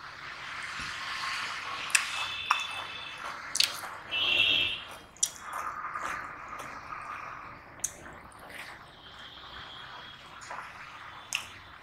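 Bare fingers squishing and kneading wet rice and curry on a steel plate, with sharp clicks of the fingers and nails against the metal. A brief high squeak comes about four seconds in.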